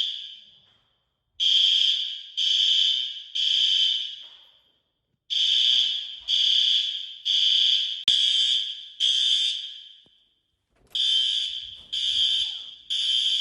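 Building fire alarm horn sounding the evacuation signal: loud, high-pitched blasts about a second apart in repeated groups, with short silent pauses between the groups.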